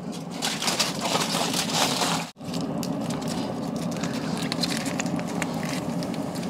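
Aluminium foil crinkling and crumpling as it is pressed around a suckling pig's snout, loudest in the first two seconds, then softer after a brief break. A steady low hum runs underneath.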